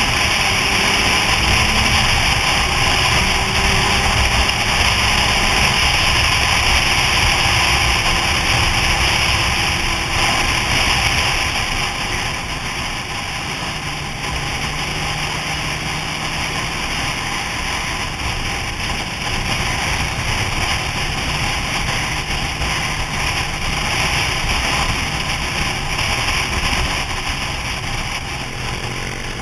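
Motorcycle cruising at highway speed: a steady loud wind rush over the microphone with the engine's low hum underneath. It eases off a little about halfway through.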